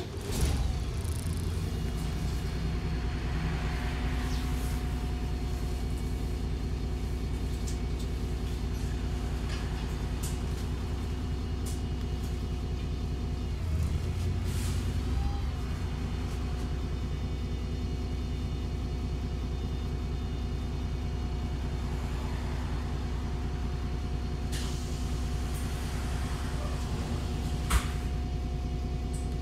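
Euro VI Cummins ISBe 6.7 diesel engine of a MAN 18.240 bus, heard from inside the saloon, coming on suddenly at the start and then idling steadily with a low rumble. A few brief hisses are heard partway through and near the end.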